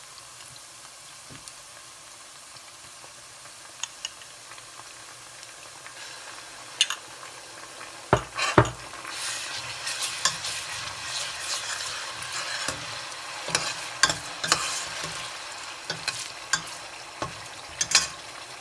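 Chopped onions and whole dried red chillies sizzling in hot oil in a stainless steel pot: the tadka stage of a dal. About eight seconds in, a metal ladle knocks twice against the pot and then stirs, clicking and scraping on the steel, while the sizzle grows louder.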